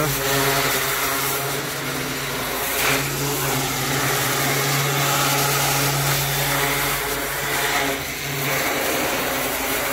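Pressure washer running: a steady motor hum under a dense hiss of water spray.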